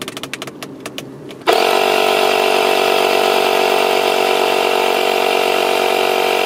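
A few handling clicks as the inflation needle goes into a soccer ball. About a second and a half in, the Suaoki DC 12 V portable tire inflator's compressor starts and runs steadily with a constant hum, pumping up the ball.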